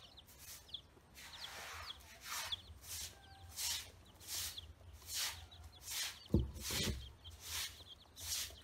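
Chicks and ducklings peeping now and then as they feed, short thin chirps, over a rhythmic hissing pulse that repeats a little more than once a second. A dull thump about six and a half seconds in.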